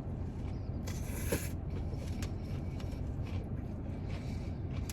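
Quiet eating sounds, faint clicks and a brief rustle about a second in, over a steady low hum.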